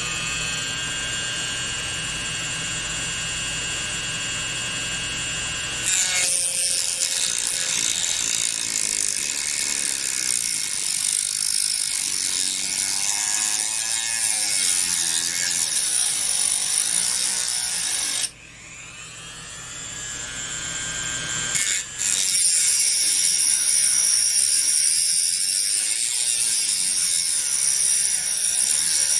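Hand-held rotary tool with a cut-off wheel whining steadily for about six seconds, then grinding into the metal top terminal of a spark plug's centre electrode. About 18 seconds in the grinding stops and the motor's whine rises again, and the cut resumes a few seconds later.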